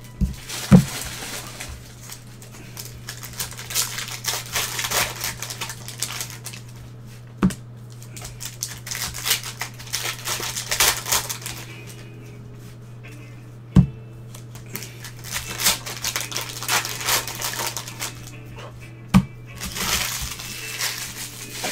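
Trading-card pack wrappers crinkling and tearing as gloved hands open and handle the packs, with four sharp knocks spread through and a steady low hum underneath.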